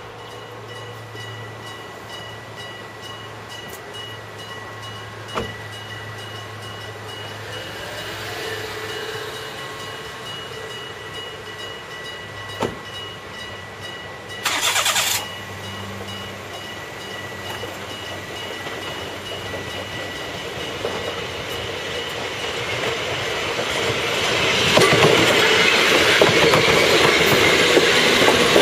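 Hokuriku Railroad Ishikawa Line electric train approaching and then passing close by. Its rumble grows louder over the last third and is loudest near the end, with wheels clattering on the rails. A level-crossing bell rings steadily throughout, and there is a short loud burst of noise about halfway.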